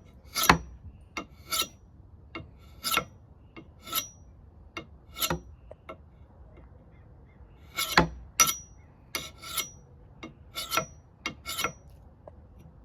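A dull steel hatchet edge drawn again and again through a handheld kitchen knife sharpener: short scraping strokes about once a second, each with a brief high metallic ring, with a pause of about two seconds midway.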